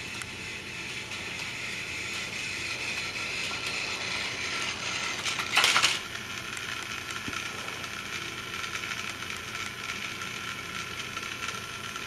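Motorized toy train engine running along plastic track, its small motor and gears whirring steadily. A brief, much louder burst of noise cuts in about halfway through.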